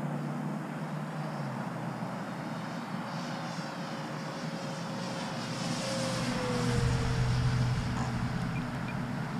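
The electric motor and propeller of a 1600 mm Flightline Spitfire RC model flying past. Its whine grows to its loudest about seven seconds in and drops in pitch as it goes by.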